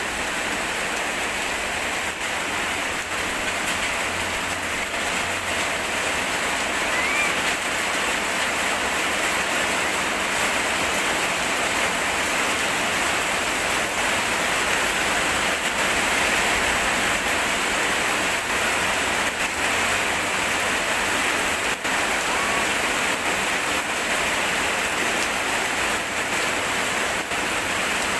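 Heavy rain falling steadily, a dense unbroken rush of water.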